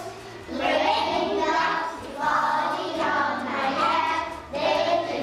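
A group of young children singing together, in short phrases with brief pauses between.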